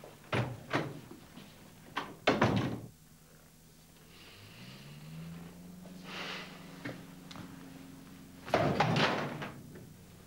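A series of heavy knocks and thuds: two short ones near the start, a loud cluster about two seconds in, and another loud cluster near the end. A low steady tone rises in about four seconds in.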